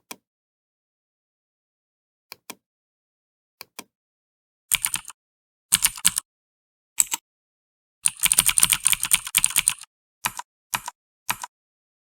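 Mechanical-keyboard keystroke clicks of the kind played by the Mechvibes typing-sound app: a few faint single clicks, then short runs of typing, a fast burst of keystrokes lasting about a second and a half, and a few last single clicks.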